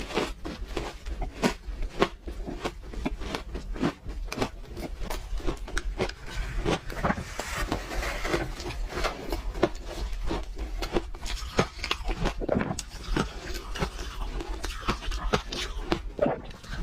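Frozen pink ice being bitten and chewed close to the microphone: dense, irregular crunching and cracking, several crunches a second, over a steady low hum.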